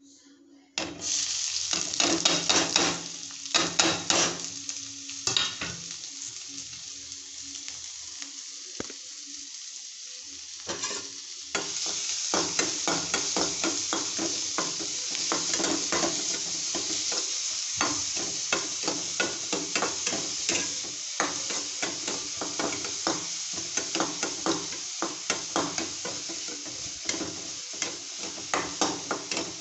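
Chopped onions and green chillies frying in oil in an aluminium kadai, sizzling steadily while a spatula scrapes and taps against the pan as they are stirred. The sizzle starts suddenly about a second in, eases off for a few seconds, then picks up again about eleven seconds in.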